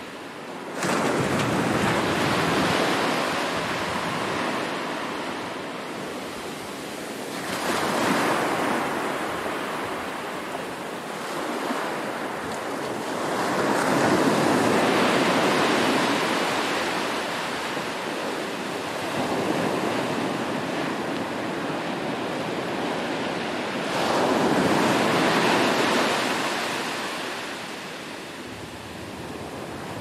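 Surf on a sandy beach: small waves break and wash up the shore, a rushing hiss that swells and fades five times, about every five to six seconds.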